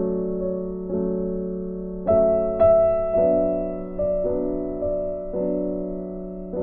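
Background music: slow piano chords, a new chord struck about every half second to a second and each one fading.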